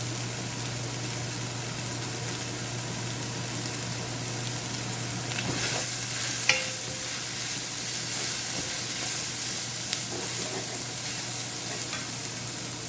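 Onions and mushrooms sizzling in a frying pan while a utensil stirs and scrapes them, with a sharp clink of the utensil against the pan about six and a half seconds in. A steady low hum runs underneath.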